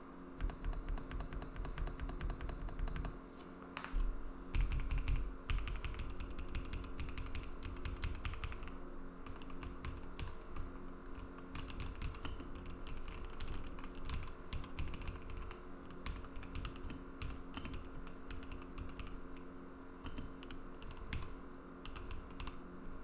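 Rapid typing on a KBDCraft Adam mechanical keyboard fitted with S2 linear switches in POM housings on a POM plate, tape-modded PCB: a dense run of keystroke clacks. The strokes are heavier and deeper for the first several seconds and lighter after that.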